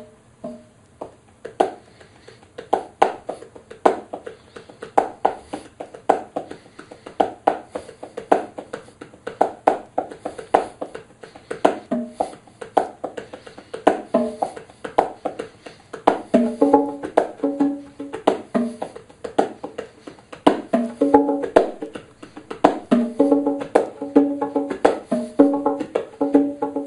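Pair of Sonor bongos played with bare hands in a funk-rock groove: a steady rhythm of short muted strokes and slaps. From just past the middle, runs of ringing open tones between the low and high drum are mixed in.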